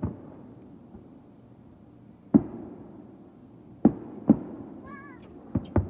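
Fireworks bursting: about six sharp bangs at uneven intervals, two of them close together near the end, each followed by a brief low rumble.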